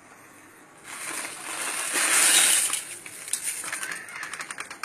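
Dried long peppers (pippali) tipped into a kadai: a noisy rattling pour that builds from about a second in and dies away near the three-second mark, followed by a few light clicks.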